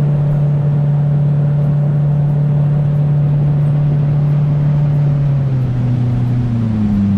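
New outboard jet boat motor running at a steady speed on the river, its engine note dropping about five and a half seconds in as it slows during break-in running.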